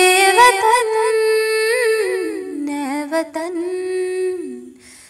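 A woman singing a slow, unaccompanied, wordless vocal line, holding long notes with small ornamental turns. The melody steps down in pitch about two seconds in and again near the end, followed by a short breath.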